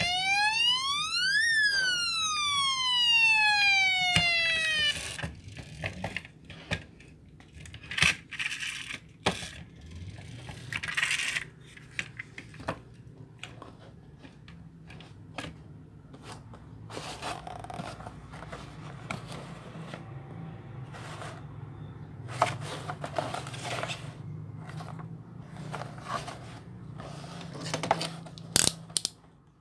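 Electronic siren from a die-cast toy police pickup, one wail that rises and then falls over about five seconds. After it come scattered clicks, knocks and scraping as the toy car and a cardboard box are handled.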